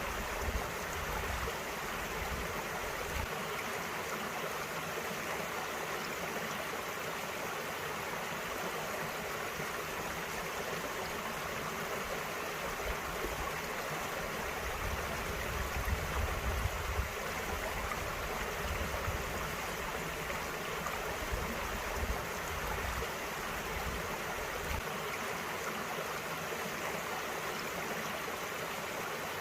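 A small mountain stream running and splashing over rocks, a steady rush of water. Low rumbles come and go now and then, loudest about a third of the way through.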